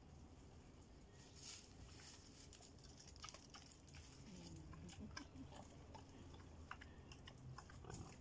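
Wild boars feeding on the forest floor: faint, scattered crunching and chewing with crackles from the leaf litter as they root for food.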